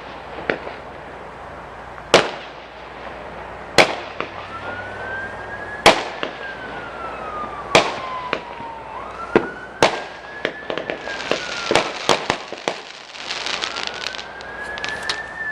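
Fireworks going off outside: sharp bangs about every two seconds, then a spell of rapid crackling near the end. From about a third of the way in, a siren wails slowly up and down under them.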